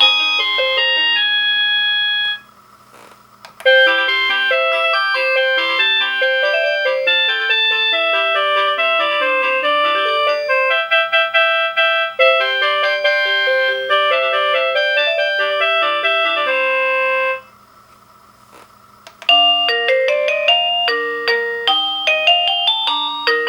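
Avantek D-3B wireless doorbell receiver playing its built-in electronic chime tunes one after another. A tune ends about two seconds in, a long tune of note-by-note chimes follows a short pause, and another tune starts after a second pause near the end.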